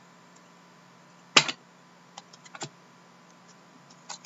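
Trading cards and a clear plastic card holder being handled on a table: one sharp snap about a second and a half in, then a few light clicks and taps, over a faint steady hum.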